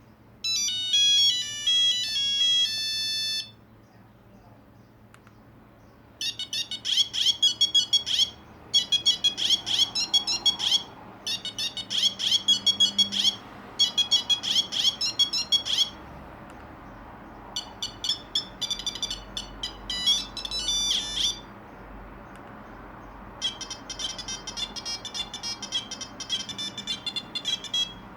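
Nokia 2100 mobile phone playing a series of short ringtone melodies in high beeping tones, separated by short pauses: a brief tune, then a phrase repeated four times, another short tune, and a faster one starting near the end.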